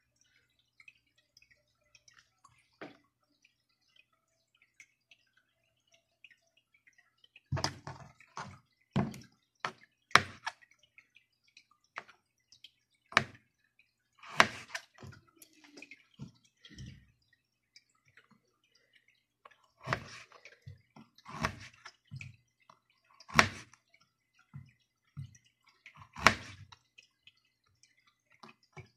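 Kitchen knife cutting through a carrot and knocking down onto a plastic cutting board in single, irregular chops about every second or two, starting several seconds in.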